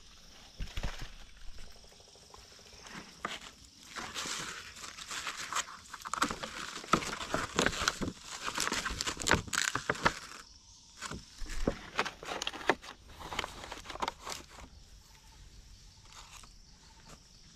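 Footsteps crunching and rustling through forest leaf litter and undergrowth, a dense run of irregular crackles that is busiest in the middle and thins out near the end.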